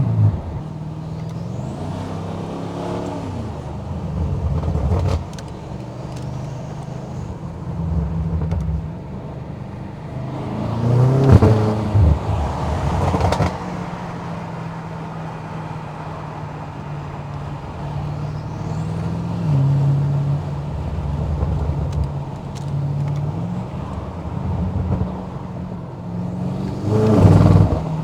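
2020 BMW M8 Competition's twin-turbo V8, tuned to about 800 hp, driven through the gears: the engine note climbs and drops with each shift. It surges loudly twice, once in the middle and once near the end, and faint high whistles rise now and then.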